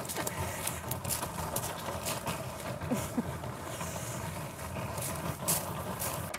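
Wheels of a rolling suitcase grinding over gravel, with footsteps crunching on the stones.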